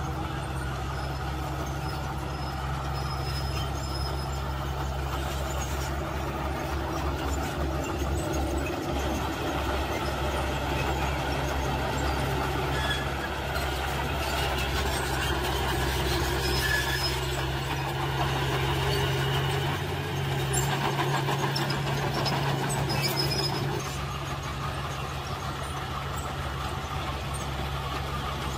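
Small Komatsu crawler bulldozer's diesel engine running steadily as it pushes loose soil with its blade. The engine grows somewhat louder around the middle and eases off about three quarters of the way through.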